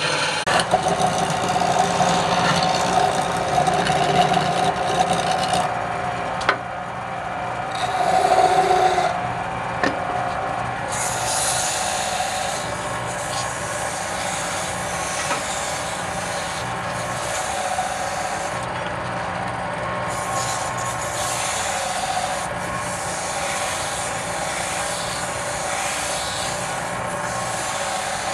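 Wood lathe running, a steady motor hum under the rough scraping of a turning tool cutting the spinning wood, heavier in two spells early on and a few sharp clicks.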